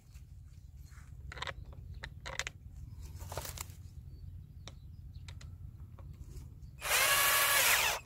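An 18-volt cordless drill runs in one burst of about a second near the end, boring through a saddle fitting into a polyethylene water pipe. Before it come a few light clicks and knocks from handling the drill and fitting.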